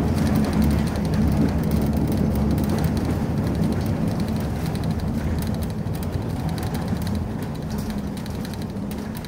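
Tram running, heard from inside the passenger car: a steady low rumble that slowly fades toward the end.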